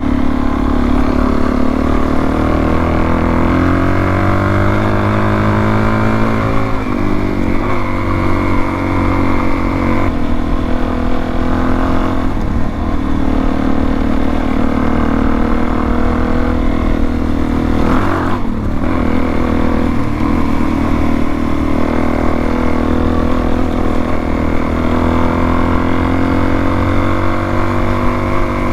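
Dual-sport motorcycle engine running under way. Its pitch climbs as it accelerates in the first few seconds, with several short dips as it shifts gear.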